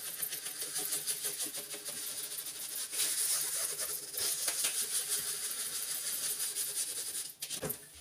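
Damp non-scratch scouring sponge scrubbed briskly back and forth over the metal base of an under-sink cabinet, a fast scratchy rubbing that stops about seven seconds in.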